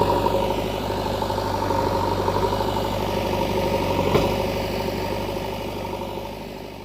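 Vehicle engine idling steadily, with a single sharp knock about four seconds in, fading away near the end.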